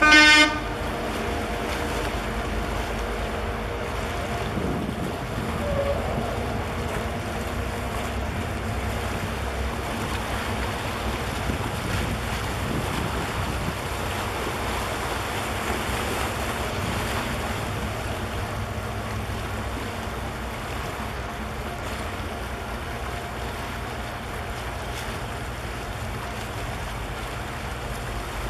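Steady low rumble of a passing container ship and its escort tug, with wind buffeting the microphone and harbour water washing. A short, loud horn blast sounds right at the start.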